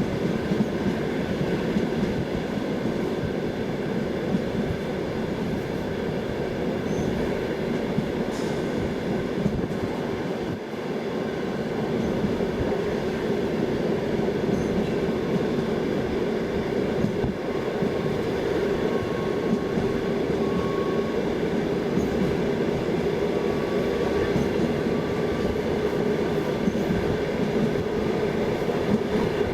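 Passenger train running along the track: a steady rumble of wheels and carriage on the rails. A faint thin whine comes and goes in the second half.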